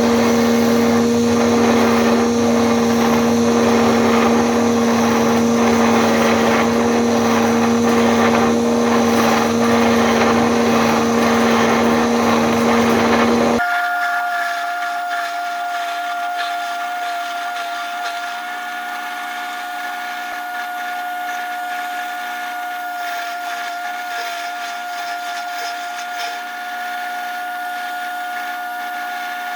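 A power tool running steadily at one pitch. About 13 seconds in it cuts off abruptly to a different, higher-pitched tool running steadily.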